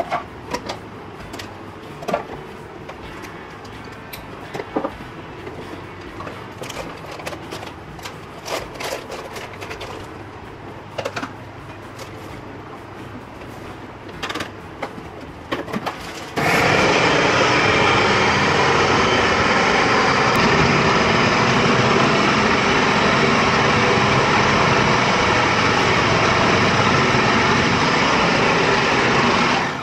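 Clicks and clatter of a food processor's plastic bowl and lid being handled and filled, then the electric food processor's motor starts suddenly about halfway through and runs steadily and loudly, stopping right at the end.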